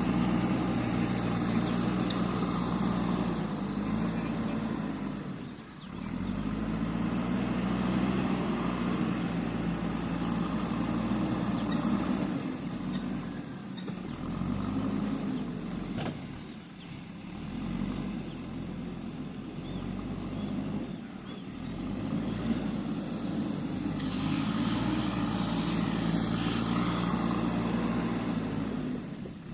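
JCB 3DX backhoe loader's diesel engine working under varying load, its pitch rising and falling again and again, with a few brief lulls.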